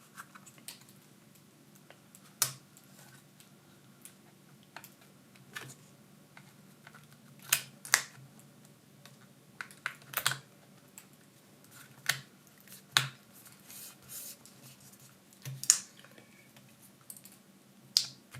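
Irregular sharp clicks and light taps of a replacement laptop battery being handled and set into the opened chassis of a Dell Latitude 7389, a click every second or so with a few louder ones.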